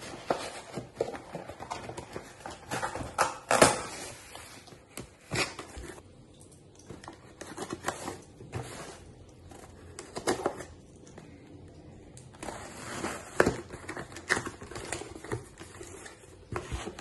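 Cardboard boxes being handled and opened: scraping, rustling and flaps opening, with many short knocks and taps. There is a quieter stretch in the middle.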